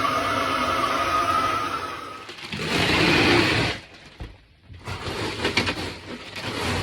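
Handheld electric power tool: a steady motor whine for about two seconds, then a loud burst of harsh cutting noise, a short pause, and more rough noise with clicks near the end.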